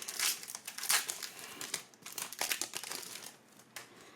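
Trading card pack wrapper being ripped open and crinkled by hand, a quick run of irregular crackles that thins out near the end.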